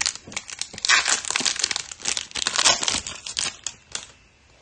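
Wrapper of a baseball trading card pack crinkling and tearing as it is ripped open by hand. The crackling stops about three and a half seconds in, followed by a couple of light clicks.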